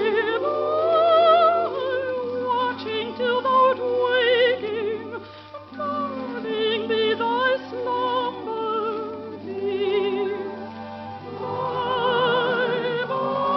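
A woman's operatic voice singing a light-opera song with a wide vibrato, phrase after phrase of sustained high notes. A steady low hum runs underneath.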